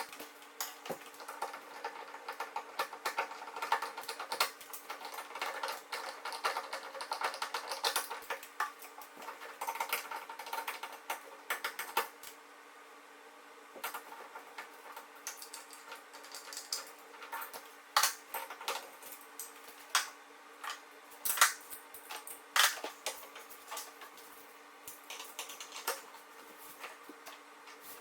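Irregular clicking and light clatter of small hard objects, busier for the first dozen seconds and sparser after, over a faint steady hum.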